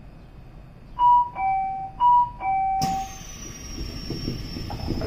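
Two-tone descending chime, high note then low, played twice in quick succession: a train's door-closing warning chime. Then a sudden hiss of air with a faint high whine, and a few low knocks.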